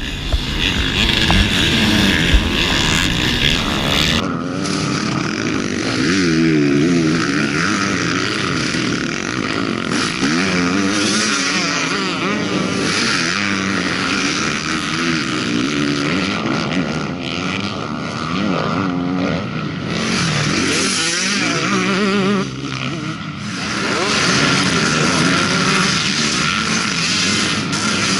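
Motocross motorcycles racing, several engines revving hard, their pitch rising and falling again and again as the riders work the throttle, with sudden changes in the sound at a few points.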